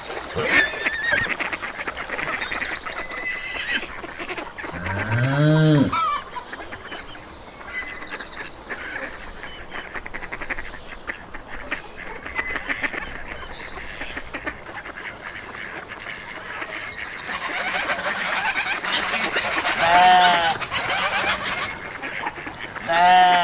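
Farmyard of geese and other fowl: geese honking over constant chatter from birds and poultry. A low call rises in pitch about five seconds in, and short arched honks come near the end.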